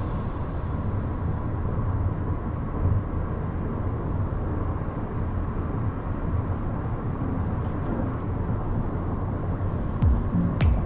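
Steady road and engine noise of a car driving at freeway speed, heard from inside the cabin, weighted low. Music comes in near the end.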